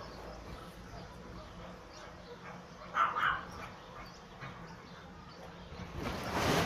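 One short, high dog cry about three seconds in, from a pair of American Staffordshire terriers mating. A rushing noise builds near the end.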